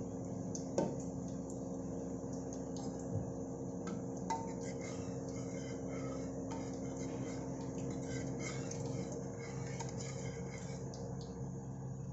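A metal spoon stirring thick cooked moong dal in a pressure cooker, with scattered light scrapes and clinks against the pot. A steady low hum runs underneath.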